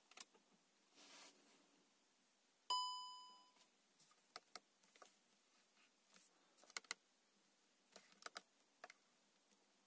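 Volkswagen Tiguan instrument-cluster warning chime: a single bright ding about three seconds in that fades away in under a second, sounding as the 'Inspection now!' service reminder comes up. Soft clicks of buttons and switches being pressed come before and after it.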